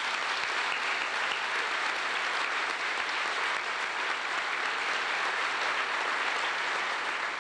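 Seated audience applauding steadily.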